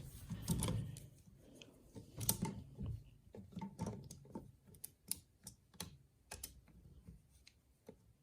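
Irregular light clicks and taps of hard plastic parts and a screwdriver being worked together, coming less often toward the end.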